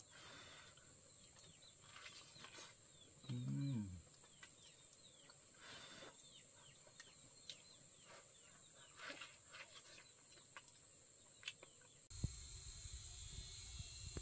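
Birds peeping with short, high, falling notes over a steady high insect drone, with a short low hum from a man's voice about three and a half seconds in. Near the end the sound changes to a low rumble of wind on the microphone.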